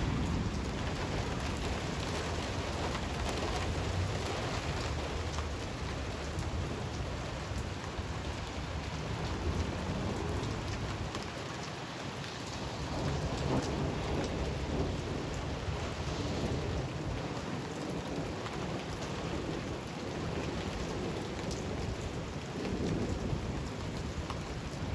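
Steady heavy rain falling, with thunder rumbling low a few times.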